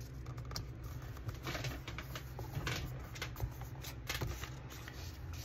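Soft paper rustling and scattered light taps of fingers as a box sticker is pressed down and smoothed onto a paper planner page, over a low steady hum.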